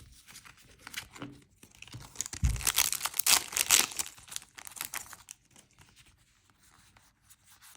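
A foil trading-card booster pack being torn open and its wrapper crinkled in the hands, a dense run of crackling about two to five seconds in. A soft low knock comes just as it starts.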